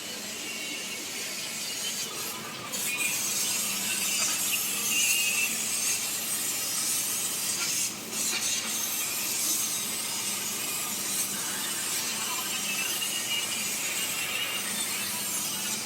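CNC laser cutter cutting sheet metal: a steady hiss over a low hum, louder from about three seconds in, with a short dip near the middle.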